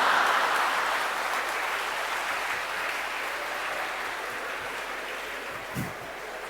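Audience applause, loudest at first and slowly dying away, in response to a joke's punchline.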